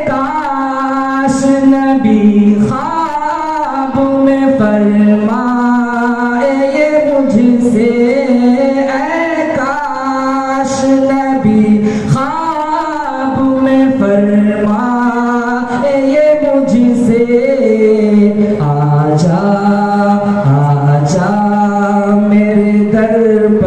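A man singing a naat unaccompanied into a microphone, with long held notes that slide and step between pitches.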